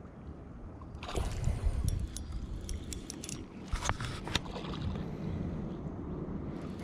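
Water sloshing and gurgling against the hull of a small aluminium boat moving under an electric trolling motor, as a steady low rumble that swells about a second in. Scattered short clicks come through over the next few seconds.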